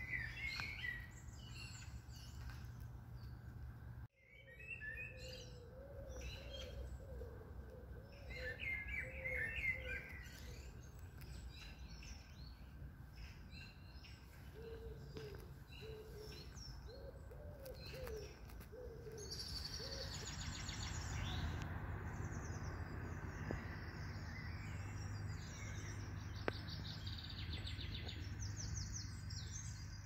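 Several wild birds singing and chirping among trees, with high chirping phrases throughout, lower wavering calls in the middle stretch, and rapid high trills later on. A steady low rumble runs underneath.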